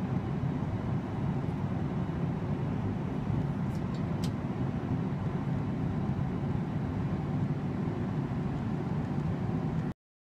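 Steady rumble of jet engines and rushing air heard inside the cabin of a Boeing 737 airliner in cruise. It cuts off suddenly near the end.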